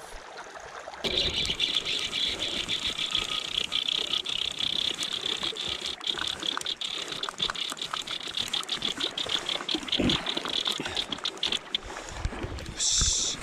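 Fly reel's clicker drag buzzing in a rapid run of ticks as a hooked king salmon pulls line off, starting about a second in and easing off just before a short, sharper burst near the end.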